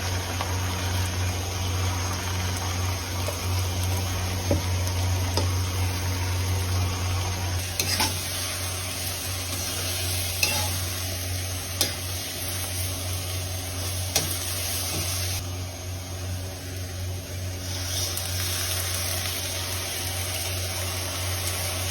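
Fish and eggplant sizzling in a wok as they are stirred, with a few sharp clicks of the spatula against the pan and a steady low hum underneath.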